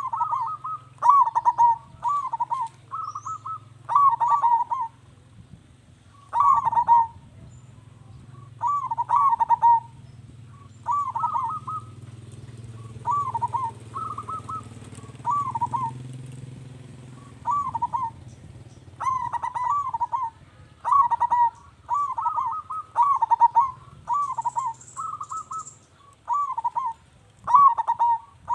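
Zebra dove (perkutut) cooing: bursts of quick, rolling coo notes, each phrase repeated every second or two, over a steady low hum.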